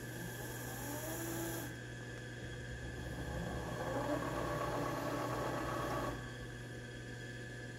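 Power-feed servo motor of an Acu-Rite MillPwr CNC driving the table of a Clausing Kondia milling machine, whining with a rising pitch as the table jogs. There are two moves: a short one at the start and a longer, louder one that runs for about two and a half seconds from about three and a half seconds in. A steady low electrical hum sits under both moves.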